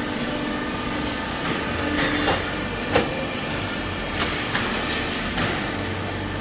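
Exhaust pipe crimping machine running while it works a pipe: a steady motor hum with a few sharp clicks and knocks.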